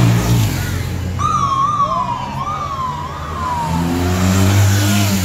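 Police escort siren sounding a short wavering wail for about two and a half seconds, starting about a second in. Its pitch dips and rises a few times as it slides lower. Under it is the low running of motor engines.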